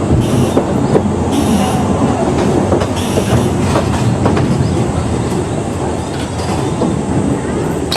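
Ōigawa Railway Ikawa Line passenger car rumbling along the rails as heard on board, with wheel clicks over the rail joints. Short high squeals come near the start and about three seconds in, as the train slows to arrive at a station.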